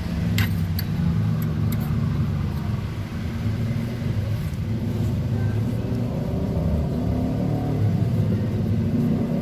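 A steady low engine rumble, like a vehicle engine running at a constant speed, with a few light clicks about half a second in.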